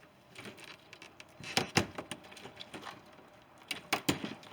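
A few sharp clicks and knocks from handling packaging: two close together a bit over a second and a half in, and a quick cluster of three near the end.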